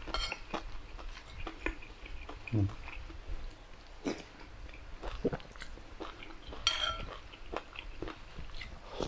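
Close-miked eating: a man chewing mouthfuls of soupy curry, with scattered clicks of a metal spoon against the bowl.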